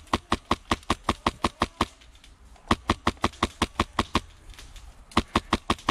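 Airsoft rifle firing on full auto, about seven shots a second, in three bursts with short pauses between.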